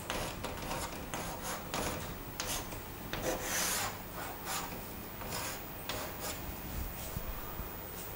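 Chalk writing on a chalkboard: a run of short, irregular scratchy strokes, with one longer stroke about three and a half seconds in.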